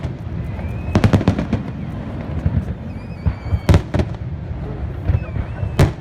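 Fireworks display: a quick cluster of sharp bangs about a second in, then single loud bangs near four and near six seconds, over a continuous low rumble of more distant bursts.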